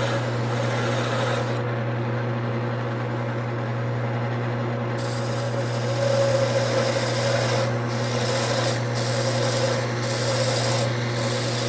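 Wood lathe running with a steady motor hum while a parting tool scrapes into the spinning wood. The scraping thins out for about three seconds from two seconds in, then comes in several short strokes as the tool is backed off and fed back in, a little at a time, to keep its tip from heating.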